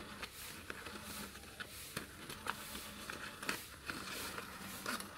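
Faint crinkling of a paper banknote and light scattered clicks as the note is pushed into the slot of a battery-powered electronic safe-style piggy bank.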